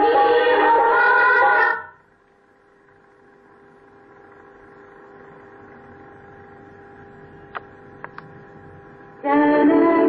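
Recorded prayer music played by the automatic school bell system ends about two seconds in, then a faint steady hum with three small clicks, and another piece of music starts loudly near the end.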